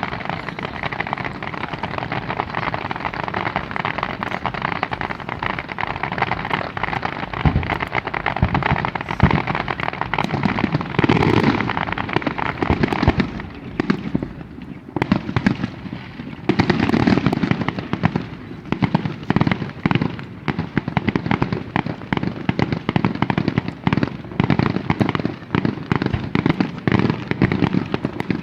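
Aerial fireworks display: a dense, continuous crackling and popping with heavier bangs mixed in, easing briefly about halfway through before building up again.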